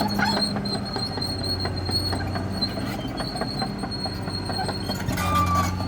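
CAT D6R XL crawler bulldozer working: its diesel engine runs steadily under a clatter of many small knocks from the steel tracks, with a thin high whine running over it.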